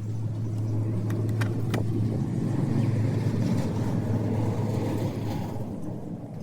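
A small electric motor running steadily with a low hum and a rushing noise, with a few sharp clicks between one and two seconds in.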